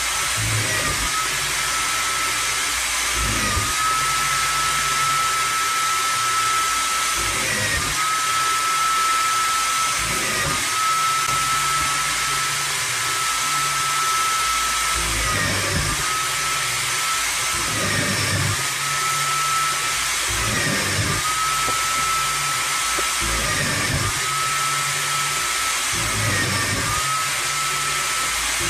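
Bench drill press running with a steady whine, its pitch dipping briefly about a dozen times as the bit is pushed down into the wood to drill a row of holes.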